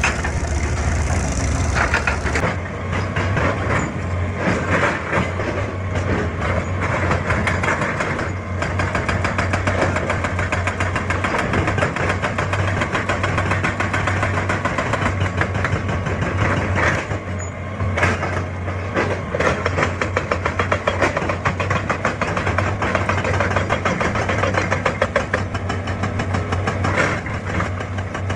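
Excavator's diesel engine running steadily, with a deep hum and small rises and dips in loudness.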